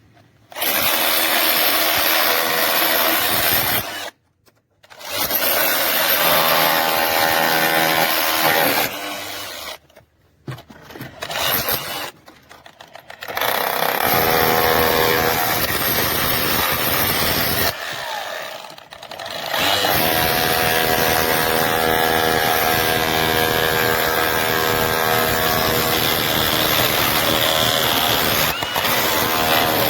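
DeWalt 20V MAX cordless SDS rotary hammer hammering into concrete. It runs in several long bursts with brief stops between them, about four seconds in, around ten and twelve seconds, and near eighteen seconds.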